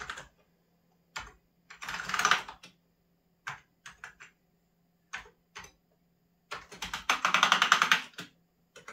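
Amiga 2000 keyboard keys being pressed to check that each one registers. There are a few scattered single key clicks and two runs of fast keystrokes, the longer one near the end.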